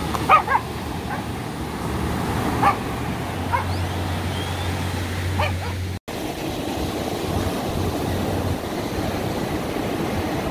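Dogs barking in short yips, two close together at the start and three more within the next five seconds, over the steady wash of breaking surf.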